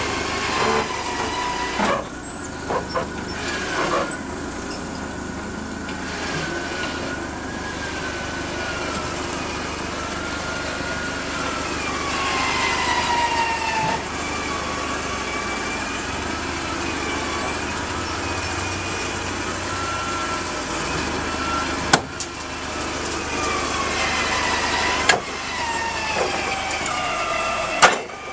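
Forklift running under load as it pushes a wrecked pickup truck up a trailer ramp, with a whine that slowly rises and falls. A few sharp metal clanks come through, the loudest near the end.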